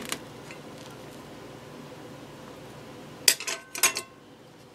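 A metal table knife clinking against a ceramic plate while cutting into a baked sweet potato: a light tap at the start, then a cluster of sharp, ringing clinks about three and a half seconds in.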